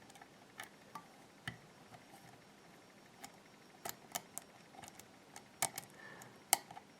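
Faint, irregular metal clicks and ticks of a lock pick probing and setting the pins of an IFAM dimple-lock cylinder held under tension.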